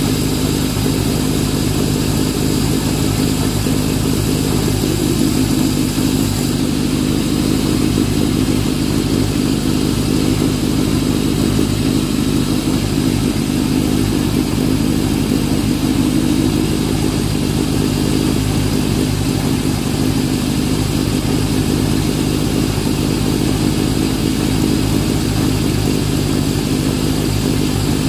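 1929 Peugeot 190S's small four-cylinder engine running at a steady idle.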